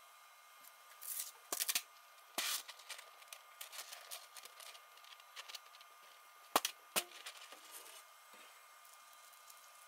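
An articulated 3D-printed plastic figure being handled on and lifted from a flexible textured PEI build plate: an irregular run of scrapes, crackles and clicks from the jointed plastic segments and the sheet, with two sharp clicks about two-thirds of the way through. A faint steady hum lies underneath.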